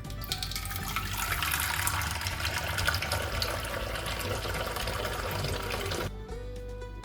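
Water running from a tap in a steady rush that is turned on just after the start and cuts off about six seconds in, over quiet background music.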